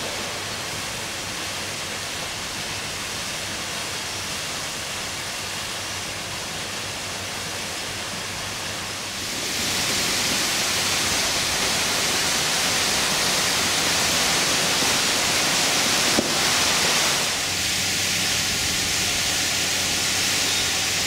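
Ornamental fountain splashing: a steady rushing hiss of falling water that turns louder and brighter about halfway through, with a faint low hum underneath and a single click a few seconds before the end.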